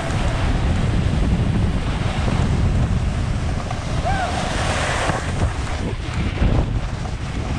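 Wind buffeting an action camera's microphone during a fast ski run, a steady low rumble over the rushing hiss of skis sliding on snow.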